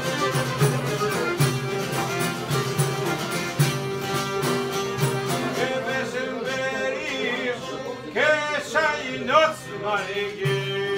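Live Albanian folk music: plucked long-necked lutes over a steady frame-drum beat, with a held drone note. A singing voice with wavering, ornamented notes comes in about halfway through.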